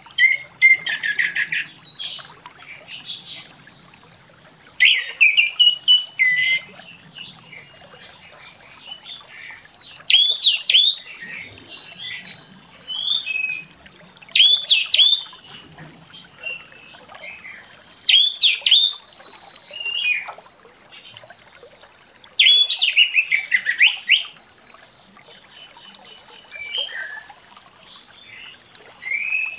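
Orange-headed thrush (anis merah) singing in full song: short, varied phrases of clear whistles, quick upward sweeps and rapid trills, coming every few seconds with pauses between them.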